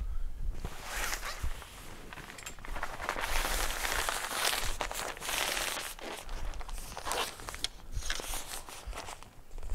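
Thick fabric of a Moonshade portable awning rustling and crinkling as it is unfolded and pulled out by hand, with a few light knocks near the end.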